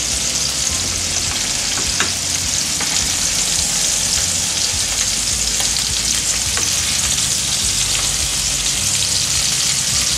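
Balls of minced meat and onion Mettwurst sizzling steadily in olive oil in a frying pan, with a few faint clicks as they are turned in the pan.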